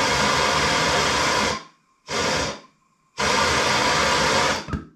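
Rothenberger Superfire 2 MAP gas torch firing in bursts, its flame hissing loudly and evenly. It cuts off sharply about a second and a half in, comes back in a short burst, then burns again from about three seconds in until near the end.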